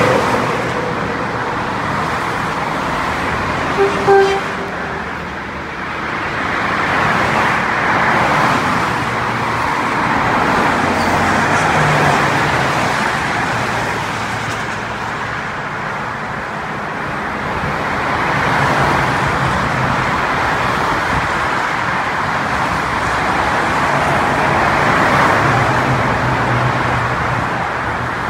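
Steady highway traffic noise that swells and eases as vehicles pass, with the low hum of a diesel train engine beneath it. A short horn toot sounds about four seconds in.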